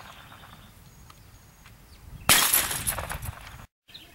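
A glass bottle shattering as it is shot: a sudden crash a little over two seconds in, with glass crackling and tinkling for about a second before the sound cuts off suddenly.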